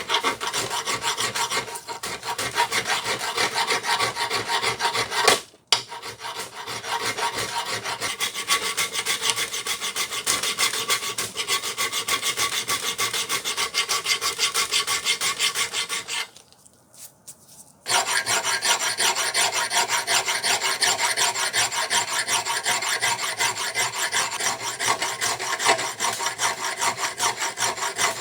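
Hand filing with quick, even back-and-forth rasping strokes on the piece being restored. The strokes break off briefly about five and a half seconds in, then stop for a second or two near the middle before starting again.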